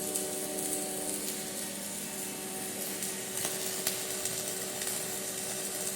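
Flux-cored arc welding arc crackling and hissing steadily during the capping pass, with a faint steady hum underneath.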